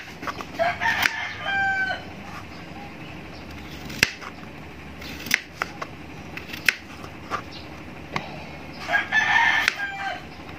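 A kitchen knife cuts through peeled potatoes onto a plastic cutting board, making irregular sharp knocks. A rooster crows twice in the background, once about half a second in and again near the end.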